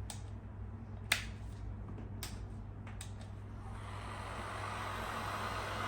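A few sharp clicks and knocks, the loudest about a second in, then a heat gun's fan starting up: a steady rushing blow of air that builds from about halfway through.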